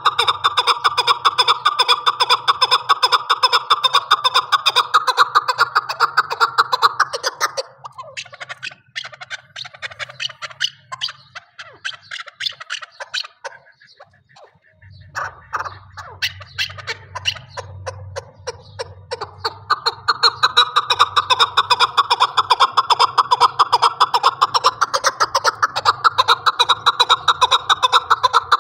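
Chukar partridge calling: long bouts of rapid, repeated clucking chuk notes. The calling breaks off about a quarter of the way in, leaving quieter scattered notes for several seconds, then starts up again loudly.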